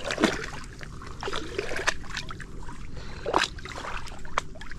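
Lake water splashing and dripping in short, irregular splashes, with a larger splash just after the start and another about three and a half seconds in.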